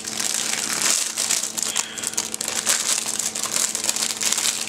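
Plastic packaging crinkling and rustling continuously as it is handled.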